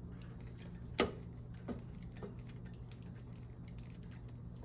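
Small clicks and taps of a screw being hand-tightened into a mower carburettor with a hand tool, with one sharper click about a second in. A faint steady low hum lies underneath.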